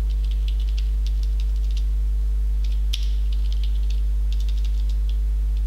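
Typing on a computer keyboard: quick runs of key clicks, one keystroke a little louder about three seconds in, over a steady low mains hum.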